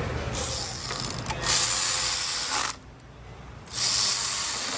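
Power ratchet running in two bursts, the first about two seconds long and the second about a second, driving fasteners home as panels go back on the car.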